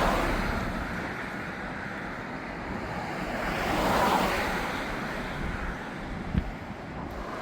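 Road traffic passing on the suspension bridge's carriageway: a steady rush of tyre noise that swells as vehicles go by near the start and again about four seconds in, with wind on the microphone.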